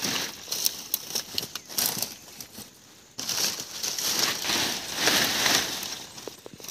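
Dry grass and dead leaves rustling and crackling, with scattered small clicks. It dies down briefly a little before halfway, then comes back louder.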